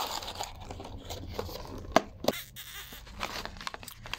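Food packaging being handled: a clear plastic takeaway container and foil wrapper rustling and crinkling, with a few sharp plastic clicks, the loudest two about two seconds in.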